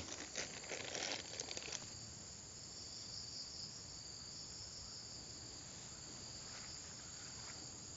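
Steady high-pitched chorus of insects trilling continuously. Rustling and light clicks of gear being handled over the first couple of seconds.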